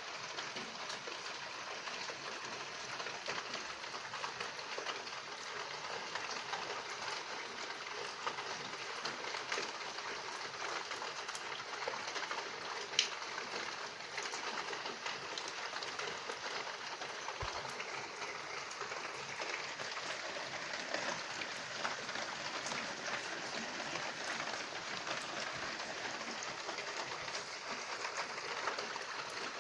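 Steady rain falling, an even hiss dotted with small drop ticks, with one sharp tick about 13 seconds in.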